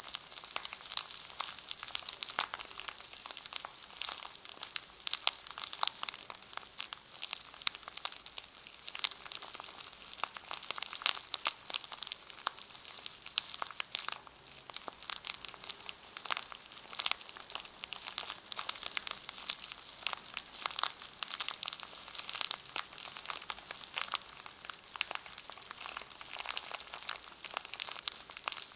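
A brush in its packaging being handled and squeezed close up, the packaging crinkling in a dense, unbroken run of small crackles.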